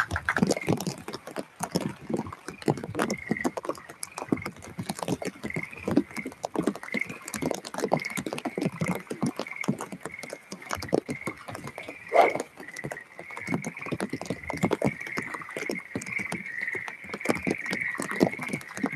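Frogs croaking, calls repeating about once a second and running together toward the end, over rain pattering as many small drop taps. One louder thump comes about twelve seconds in.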